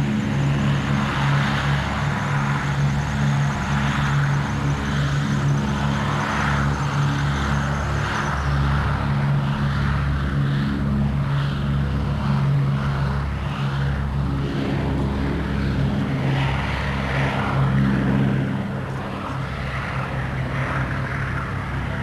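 Boeing B-17 Flying Fortress's four Wright Cyclone radial engines running at takeoff power as the bomber rolls down the runway. It is a steady, loud multi-engine propeller drone with a pulsing low beat, easing off a little near the end.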